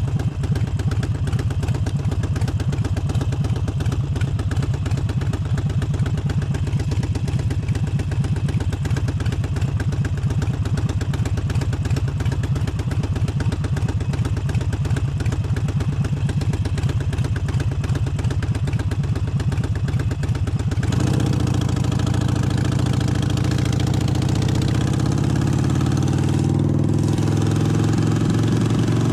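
Harley-Davidson Forty-Eight's air-cooled 1200 cc V-twin running at low revs with an even, pulsing beat. About two-thirds of the way in the bike pulls away, its engine note climbing steadily as it accelerates.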